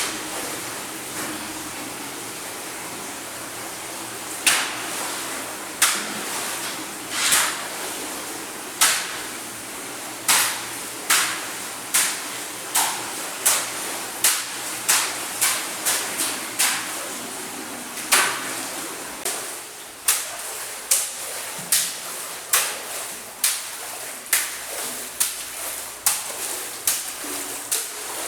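Running stream water with a series of sharp, splashy slaps. They are spaced a second or two apart at first and come about every 0.7 s from about ten seconds in.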